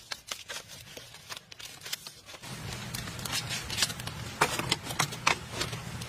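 Dry, irregular clicking and rattling of split bamboo strips and slats being handled and pressed into place, growing denser and louder about halfway through, when a low steady hum comes in underneath.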